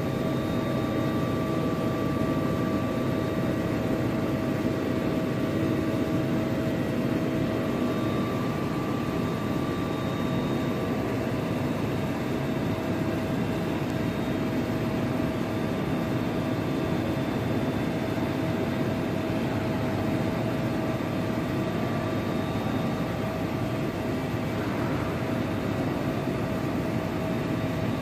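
Steady machine hum of a CNC lathe running: an even drone with several thin, steady whining tones on top.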